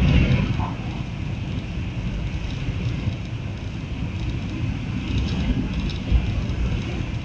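Steady low rumble and hiss of a high-speed train running at speed, heard from inside the passenger car, with a single short thump about six seconds in.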